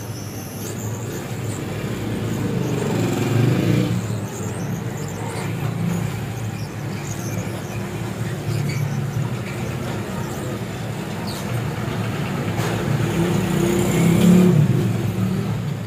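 Hot air rework gun blowing steadily onto a TV panel's T-con board to melt the solder under the scaler IC: a continuous rush of air with a low rumble, getting louder over the first few seconds.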